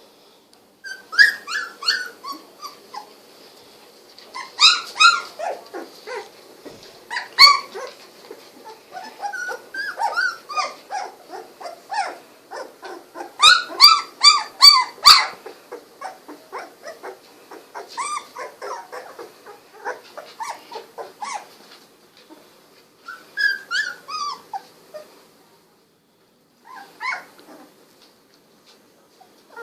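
Golden retriever puppies about 16 days old, their eyes just opened, crying in short high-pitched calls that come in clusters, several at a time, with a brief lull near the end.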